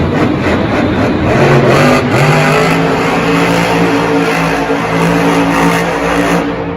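Engine revving up about one and a half seconds in and then held at a steady high pitch over loud rough noise, cutting off just before the end.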